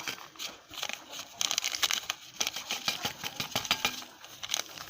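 Plastic sachet of dried thyme crinkling and crackling as it is handled and emptied over the meat, with irregular sharp clicks.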